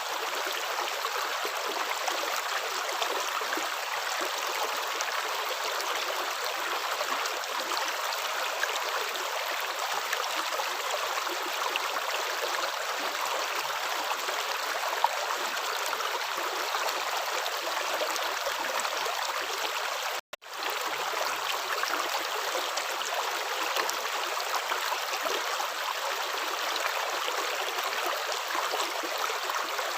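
Running water flowing steadily, a continuous, even rush like a stream, broken by a split-second dropout about two-thirds of the way through.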